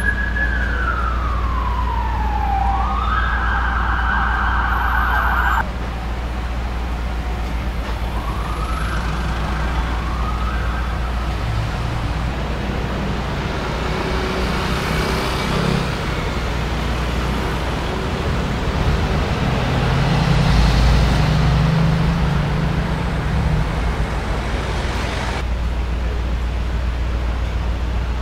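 Emergency-vehicle siren wailing, its pitch sliding down and then back up, cut off suddenly a few seconds in. After it, city traffic runs steadily, with an engine swelling louder about twenty seconds in.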